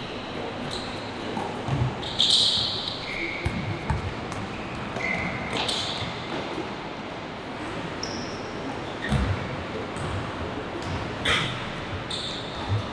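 Basketball play on an indoor court: several short, high sneaker squeaks, some sliding in pitch, with a few dull ball bounces under a steady hum of the hall.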